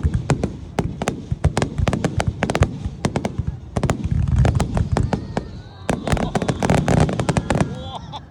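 Fireworks going off at close range: rapid volleys of sharp cracks and bangs over deep booms, thickest about halfway through and again shortly before the end. The noise dies away suddenly at the end.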